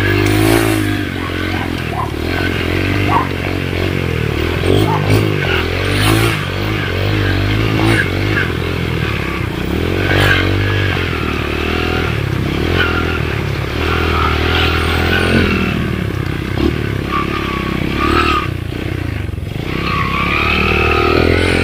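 Dirt bike engine running as it is ridden over rough ground, the revs rising and falling, with stones clattering and scraping under the tyres.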